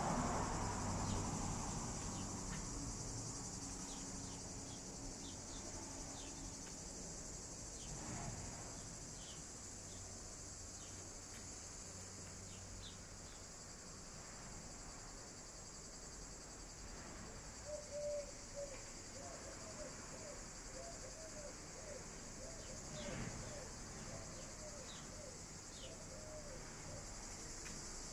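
Steady high-pitched insect chorus, crickets or similar, with scattered short chirps. About two-thirds of the way through comes a short run of quick repeated lower notes.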